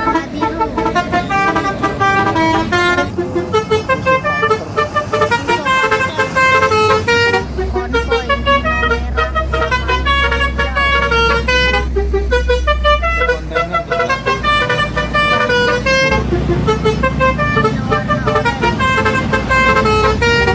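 Large truck air horns, edited into a rapid string of short toots at changing pitches that run together like a tune. A low steady rumble sits underneath from about a third of the way in to about three-quarters through.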